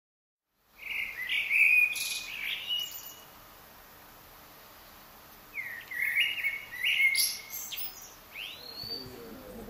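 Small songbird chirping: two spells of quick chirps and short whistles that slide up and down in pitch, the first starting about a second in and the second about five and a half seconds in.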